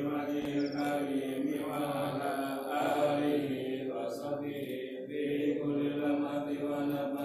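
Men chanting an Islamic devotional recitation in Arabic, with long, steadily held notes.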